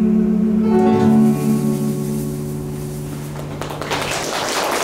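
Steel-string acoustic guitar playing a closing chord that rings out. A broad rattling noise comes in over it near the end.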